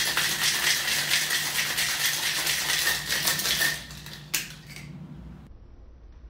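Ice rattling fast and hard inside a metal cocktail shaker as it is shaken, for about four seconds. Then two sharp knocks as the shaking stops, and it goes quieter.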